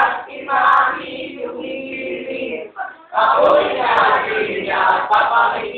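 A group of students, boys and girls, singing a jingle together, with a brief break about three seconds in.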